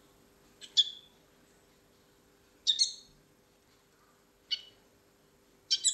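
A small bird giving short, high chirps, four of them about two seconds apart.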